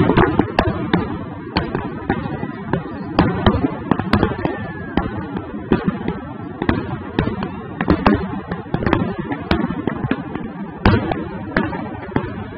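Fireworks display: a dense, irregular string of sharp bangs from aerial shells bursting, over a continuous crackling rumble, loudest at the start.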